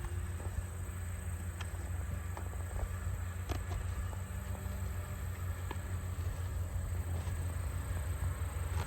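Scattered light clicks and knocks of an aluminium tripod being handled in its nylon carry case, over a steady low rumble and a thin, steady high tone.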